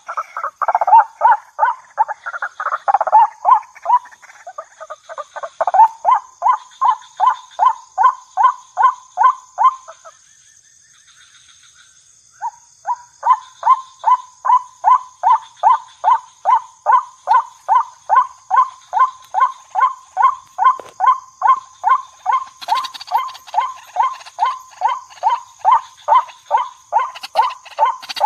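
Waterhen calling: a long, fast run of short, identical, downward-sliding notes at about three a second. The run breaks off for two or three seconds about ten seconds in, then resumes at the same pace. A faint, steady, high-pitched tone runs underneath.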